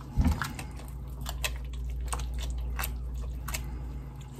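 Wooden spoon stirring a thick, wet mix of chicken, rice and cheese sauce in a stainless-steel bowl: squelching and soft scrapes against the metal at irregular intervals, with a low thud just after the start. A steady low hum runs underneath.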